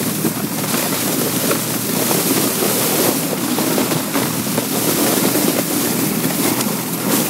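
Steady rushing noise of a sled sliding over snow as it is towed on a rope, with wind buffeting the microphone.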